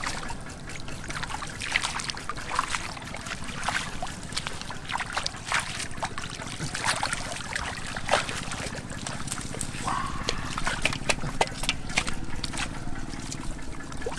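Water splashing and trickling in short, irregular bursts, over a low steady hum.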